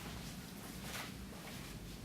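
Steady room noise: an even hiss over a low hum, with a faint brief rustle about a second in.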